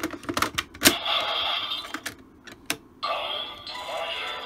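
Sharp plastic clicks as a Progrise Key is slotted into an Aims Shotriser toy gun, one click louder than the rest, then the toy's electronic sound effects. A steady electronic standby sound starts about three seconds in.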